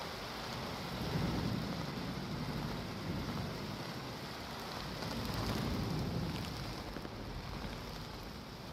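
Rain and thunder: a steady hiss of rain with two low rolling rumbles that swell, one about a second in and one around the middle.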